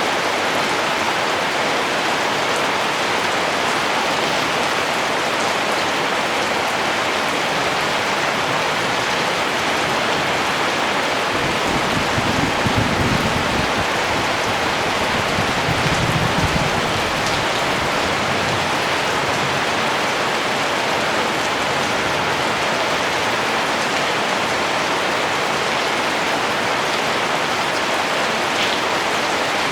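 Steady rain falling, a dense even patter of raindrops on surfaces. A low rumble swells twice around the middle, then fades back under the rain.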